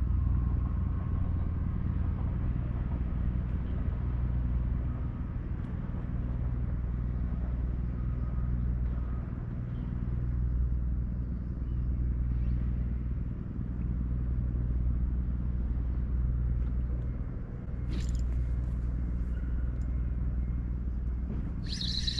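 A steady low engine rumble with a droning hum, dipping briefly a few times. Short high-pitched sounds come about eighteen seconds in and again near the end.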